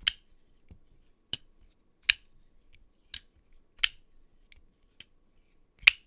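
QSP Rhino bearing-pivot flipper knife being flicked open and dropped shut over and over: about ten sharp metallic clicks, the louder ones roughly once a second as the blade snaps into lockup. It is loud on the open.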